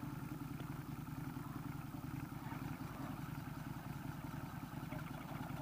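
A motorbike engine idling steadily, with an even, rapid pulse.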